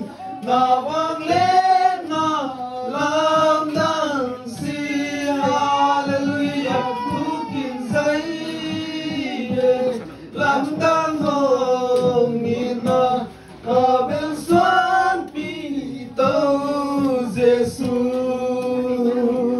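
Men's and women's voices singing together in a melodic chant, phrase after phrase, with two brief pauses between lines.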